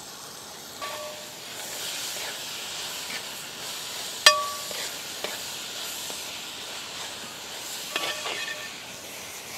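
Chopped onions and tomatoes sizzling in oil in a large metal pot as a perforated metal ladle stirs them, scraping and clinking against the pot. There is one sharp ringing clink of the ladle on the pot about four seconds in, and a few lighter clinks near the start and near the end.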